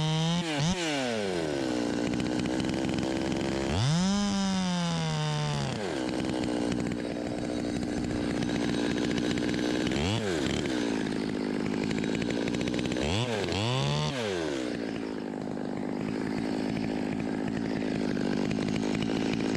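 Two-stroke chainsaw dropping from full throttle to idle at the start, then revved up and let back down for about two seconds, with two more short throttle blips later, idling steadily in between.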